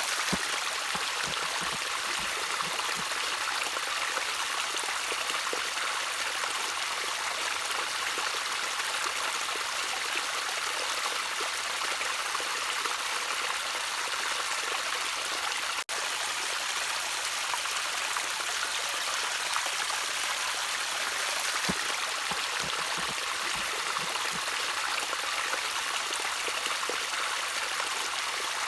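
Gentle trickling water flowing steadily, an even hiss-like rush with little low end. It drops out for an instant about halfway through.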